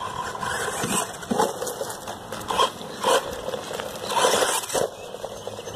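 A dog barking several times, short separate barks spread over a few seconds.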